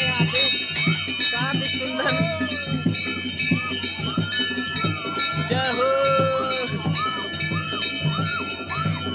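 Temple bells ringing on and on over a steady drum beat, about two beats a second.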